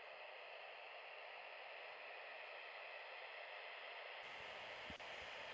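Faint steady hiss, with a soft click about five seconds in.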